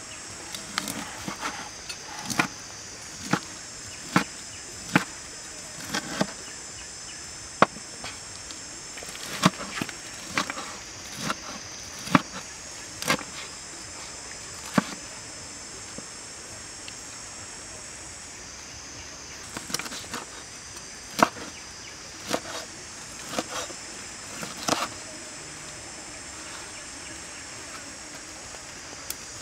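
Cleaver chopping through crisp deep-fried pork onto a wooden cutting board: sharp knocks about once a second, pausing for a few seconds midway and again near the end. A steady high-pitched insect buzz runs behind.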